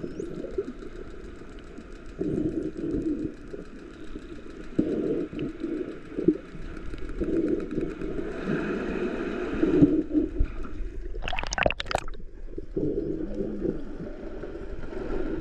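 Underwater recording: faint dolphin calls and clicks under a free diver's breathing and the rustling of his hands on the GoPro. About two-thirds of the way through there are two short, loud rushing bursts.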